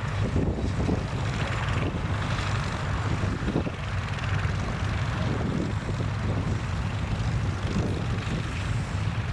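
Tractor engine running steadily, with wind buffeting the microphone.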